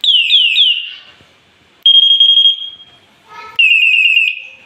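Loud electronic bicycle horn sounding short bursts of different siren tones as the sound-select button steps through its modes: three falling sweeps at the start, a fast warbling tone about two seconds in, and a quick run of falling chirps near the end.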